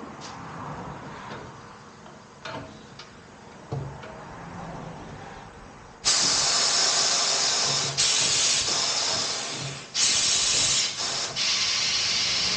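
Compressed air hissing loudly in bursts. It starts abruptly about halfway through, stops briefly three times, and is preceded by a few light clicks.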